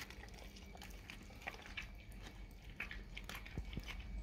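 Dog chewing and biting on a piece of raw cow tongue: irregular short clicks and smacks of the jaws, with a couple of low thumps near the end.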